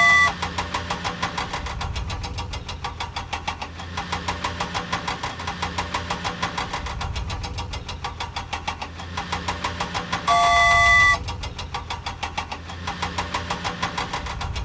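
Cartoon vehicle engine sound effect chugging with a fast, even rhythm. A steady multi-note beep sounds at the start and again for about a second near the ten-second mark.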